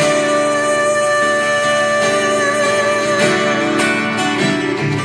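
Two acoustic guitars playing a live song passage, strummed chords under a long held note that lasts about three seconds.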